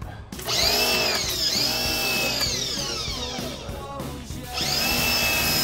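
Harbor Freight pressure washer's motor and pump spinning up as the trigger is pulled and winding down as it is let go: a whine that rises, holds, falls away, and starts up again about four and a half seconds in.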